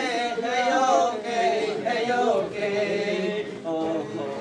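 A voice singing a chant-like melody, with long wavering held notes followed by shorter ones.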